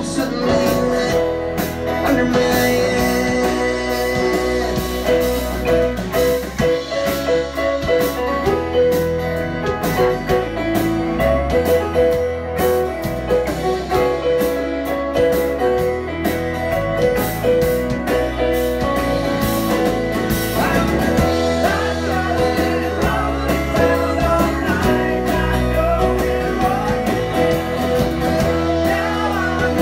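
Live rock band playing: electric and acoustic guitars, electric bass, keyboard and drum kit, with drum hits keeping a steady beat.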